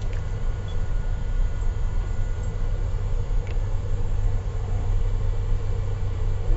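Steady low rumble of a moving vehicle, heard from inside its cabin.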